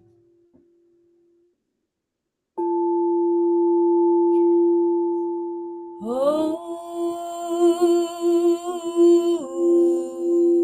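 A singing bowl sounds about two and a half seconds in, one steady tone with a higher overtone that swells and slowly fades. About six seconds in a woman's voice joins, sliding up into a long wordless sung note with vibrato over the bowl, then stepping to a new pitch near the end.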